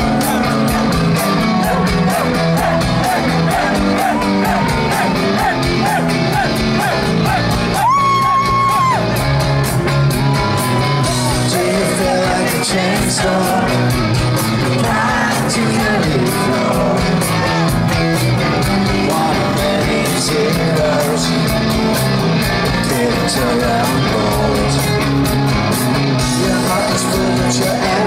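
Rock band playing live with singing, heard loud from within a large concert crowd, with crowd yells mixed in. A single high note is held for about a second, around eight seconds in.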